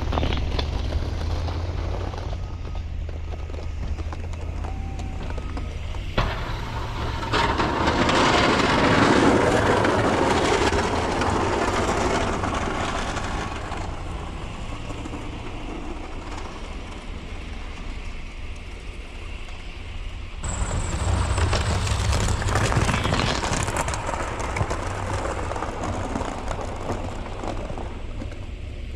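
Snowplow truck's engine running steadily under load while plowing. Twice the plow blade pushes and scrapes snow across the pavement, making a louder rushing, grinding noise.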